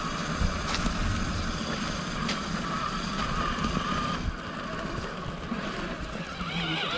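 Electric motor and gears of a radio-controlled car whining steadily as it drives over rough ground, with low rumbling, heard from a camera mounted on the car. The whine drops away about four seconds in and returns near the end.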